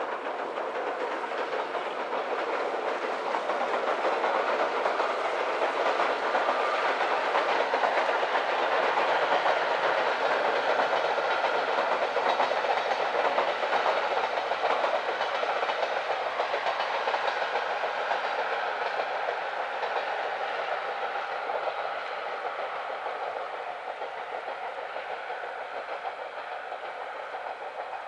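SL Banetsu Monogatari steam-hauled passenger train running by, its wheels clattering over the rail joints. The sound grows louder to a peak about ten seconds in, then slowly fades.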